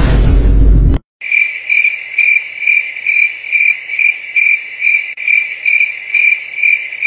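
Cricket chirping sound effect, an even, steady chirp about two and a half times a second that starts abruptly and cuts off cleanly: the stock 'crickets' gag for an awkward silence. It is preceded by a loud, low noise burst lasting about a second.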